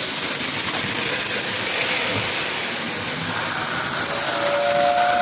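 A Lionel 675 toy steam locomotive running on its track with a steady whirring hiss. About four seconds in, the whistle in its tender starts blowing a steady two-note tone.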